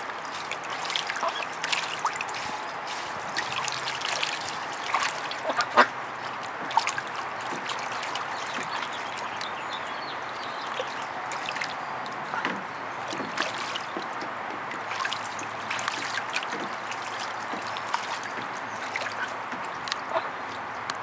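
Water lapping, splashing and trickling in a plastic kiddie pool, stirred by a white Pekin duck and her ducklings swimming, with many small splashes and drips and one sharper splash about six seconds in.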